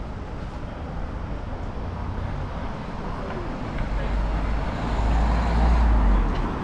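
Street ambience with road traffic. A low rumble swells about four seconds in and drops away just before the end, like a vehicle passing close by.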